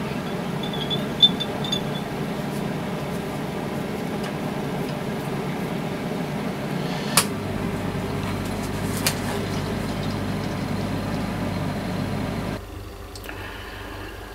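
Steady low mechanical hum with a few short clicks. About twelve and a half seconds in it drops suddenly to a quieter steady hiss and hum.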